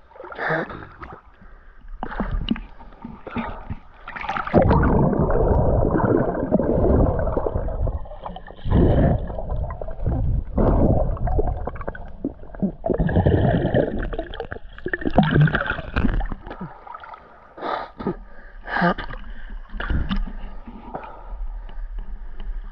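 River water gurgling and sloshing around a camera dipped in and out of the water, with irregular splashes.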